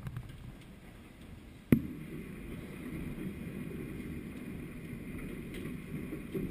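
Hailstorm with heavy rain, heard from indoors through a window: a steady rushing. There is one sharp knock nearly two seconds in, after which the rushing is louder.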